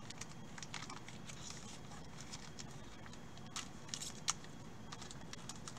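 Faint crinkling of a foil trading-card pack wrapper and rustling of cards being handled, in scattered light clicks, with a few sharper ticks about three and a half to four seconds in.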